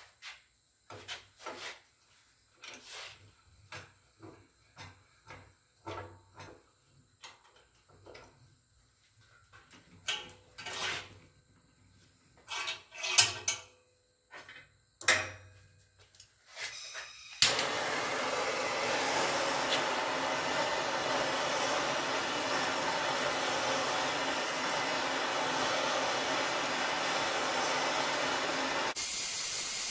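Scattered knocks and clicks of tools and metal parts being handled, then about halfway through a torch lights with a sharp click and runs with a steady hiss, heating the brake slave cylinder housing to free a stuck internal part.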